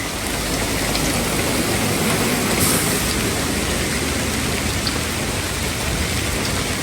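Heavy rain pouring down in a steady, dense hiss with a few faint drop ticks. It builds over about the first second and cuts off abruptly at the end.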